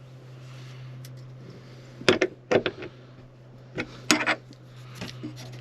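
A few sharp knocks and clicks from a Jeep Freedom top roof panel lock being worked and adjusted, over a steady low hum.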